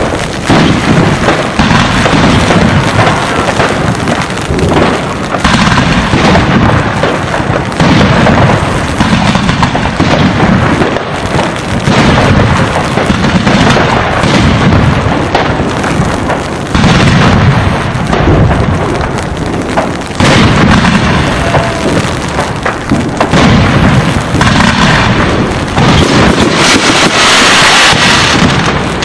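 Fireworks display: aerial shells and comets bursting in a rapid, overlapping series of booms, with a bright, crackling stretch loudest near the end.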